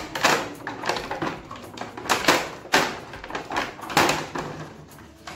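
Stiff clear plastic packaging crackling and rustling as a toy car is worked out of its moulded tray, in a run of irregular crinkles with louder ones about two, three and four seconds in.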